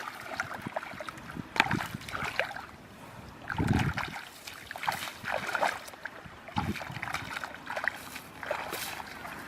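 Irregular splashing and sloshing of water, with scattered small knocks and a few short dull thumps.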